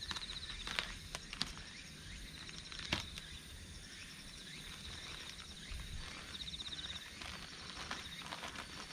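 An insect gives a short, fast-pulsing high trill twice, at the start and about six and a half seconds in. Between the trills come a few sharp clicks in the first three seconds and soft rustling near the end, heard as fertilizer is shaken out of a bag onto tilled soil.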